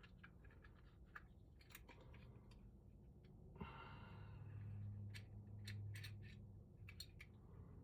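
Faint small clicks and taps of metal lock parts being handled and fitted together. About three and a half seconds in, a low hummed groan lasts about three seconds.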